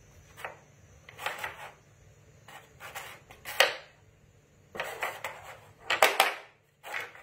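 Irregular bursts of clicking and clattering from hard objects being handled, loudest about three and a half seconds in and again around six seconds.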